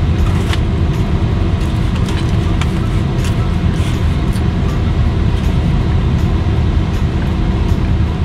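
Steady low hum and rumble inside a car's cabin, with a few faint chewing clicks from someone eating.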